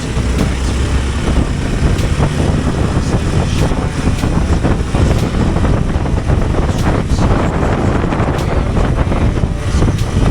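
Hero Xpulse 200 Pro motorcycle's single-cylinder engine running under way, mixed with wind noise on the microphone and scattered short clicks and knocks.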